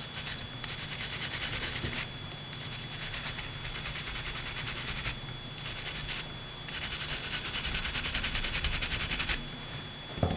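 Copper bore brush wet with solvent, scrubbing fast back and forth against the steel chamber and feed ramp of a pistol barrel, in several runs of rapid scratchy strokes with short pauses between them, to loosen powder residue. A single click near the end.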